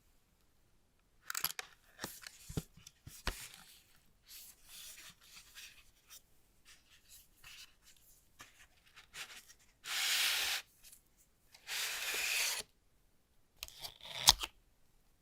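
Smartphone box packaging being handled and torn open: scattered rustling, rubbing and clicks, with two longer tearing sounds about two-thirds of the way in and a sharp click near the end.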